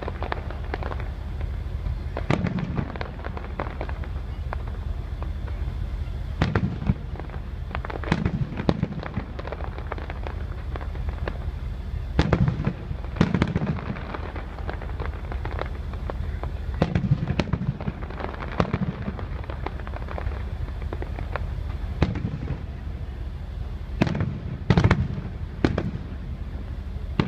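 Aerial fireworks shells bursting: sharp bangs every few seconds, some in quick pairs and a close run of them near the end, with a steady low rumble in between.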